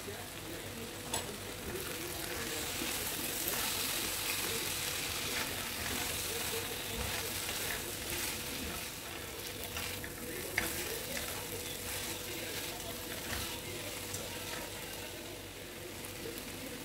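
Spiny gourd pieces sizzling in a non-stick kadhai while being stirred and turned over, with a few light clicks of the utensils against the pan.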